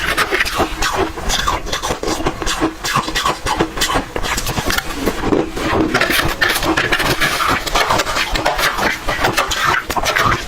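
Red ice being chewed and crunched between the teeth: a dense, continuous run of sharp cracks and crunches.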